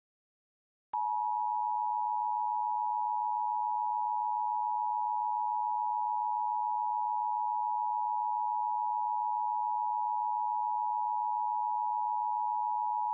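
Emergency Alert System attention signal: a steady electronic tone near 1 kHz, starting with a click about a second in and holding unbroken at one pitch.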